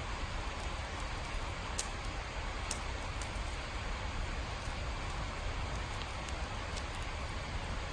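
Steady rain falling, an even hiss with a low rumble underneath and scattered sharp drip ticks, a couple of them stronger about two and three seconds in.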